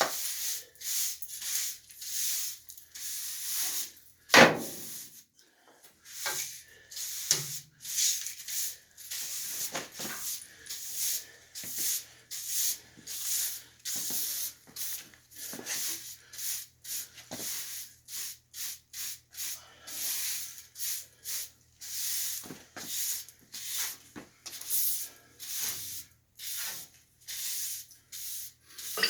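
Repeated short scraping or rubbing strokes, one or two a second in an uneven rhythm, like a hand tool worked back and forth over a surface. One sharp knock stands out about four seconds in, over a faint steady low hum.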